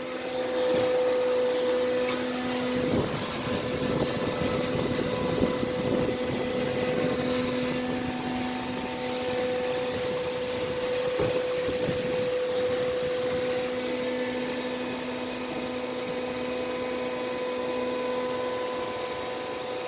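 Hyundai Sonata 2.4-litre four-cylinder engine running at a steady speed, with a steady whine over the engine noise. The engine is under diagnosis for a knocking noise.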